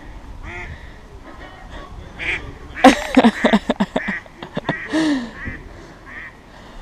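Ducks quacking: repeated calls at first, then a quick run of loud quacks about three seconds in and one more call near five seconds.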